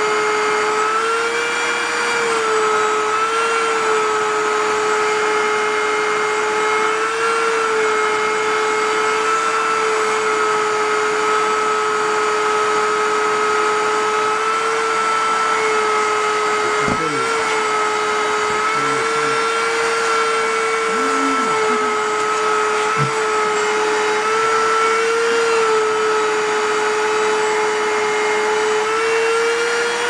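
Shop-vac motor running with suction through its hose, a steady whine that wavers slightly in pitch now and then.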